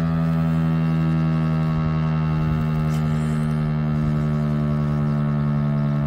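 STL-10 outdoor warning siren sounding a steady, low tone with a stack of overtones, manually activated for a siren test.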